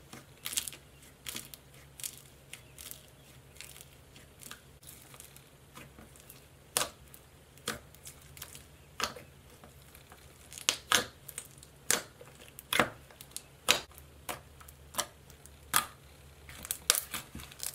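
Fingers pressing and squeezing slime packed with foam beads, giving irregular sharp crackles and pops, louder and closer together in the second half.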